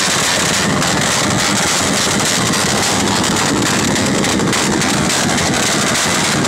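Motorcycle engines revved hard and held at high revs, loud and steady, as if pushed to breaking point.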